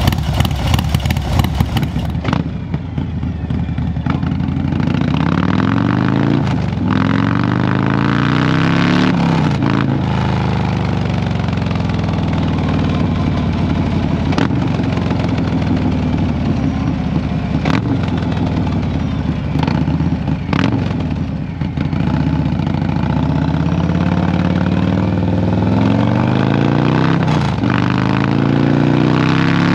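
Harley-Davidson Low Rider ST's Stage 2 Milwaukee-Eight V-twin through an SP Concept big bore exhaust, idling at first, then under way pulling through the gears. The revs rise, drop at each gear change and climb again, several times.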